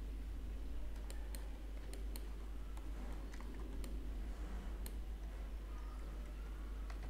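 Scattered sharp clicks from a computer mouse's scroll wheel and middle button as it is worked, over a faint steady low hum.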